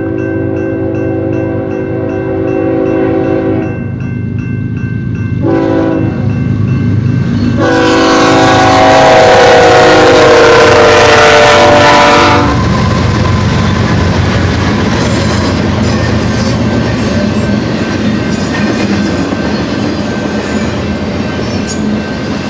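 A BNSF freight train led by an ES44C4 locomotive sounds its horn in several blasts at a grade crossing, with the crossing bell ringing. The last long blast is the loudest and drops in pitch as the locomotives pass, then stops about twelve seconds in. After that the intermodal cars rumble and clatter steadily over the rails.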